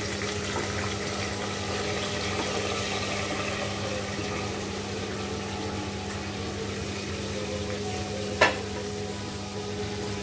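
Cooked kidney beans being scraped and stirred with a wooden spatula in a stainless steel pressure cooker over a steady sizzling hiss. About eight seconds in, one sharp metallic knock as the emptied steel pot is set down.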